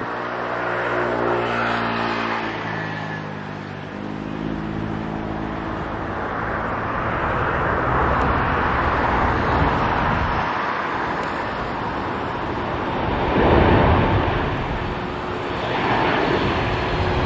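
CFM LEAP-1B jet engines of a Boeing 737 MAX 8 on approach with the gear down: a continuous rushing jet noise, with a steady whine in the first four seconds or so that then fades. Wind buffets the microphone in gusts near the end.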